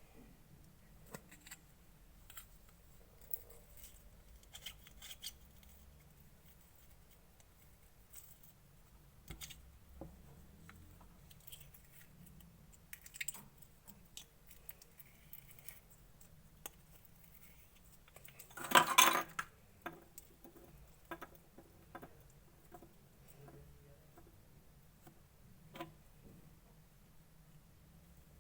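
Clear slime being handled and mixed, giving scattered small sticky clicks and crackles, with one louder crackling squish about two thirds of the way in.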